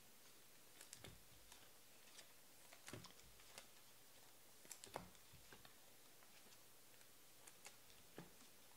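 Near silence broken by faint, irregular clicks and taps of trading cards being handled and laid down, loudest about five seconds in.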